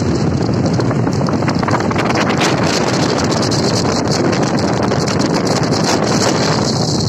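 Steady road and wind noise inside a moving car at highway speed, with wind buffeting the microphone and crackling.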